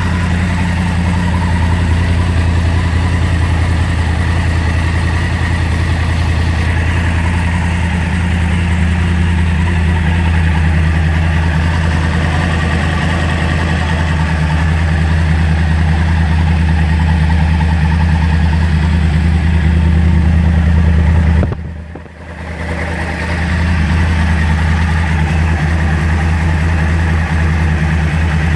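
Yamaha R1 motorcycle's inline-four engine idling steadily. The sound briefly drops away for about a second near the end, then returns unchanged.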